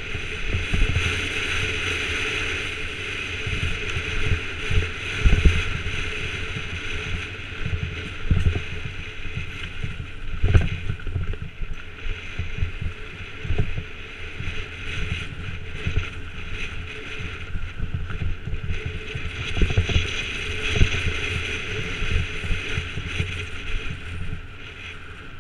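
Mountain bike descending fast on a rough, broken-tarmac track: tyre rumble and wind rushing over the GoPro's microphone, with repeated sharp knocks as the bike hits bumps and potholes. It gets quieter near the end as the surface smooths out.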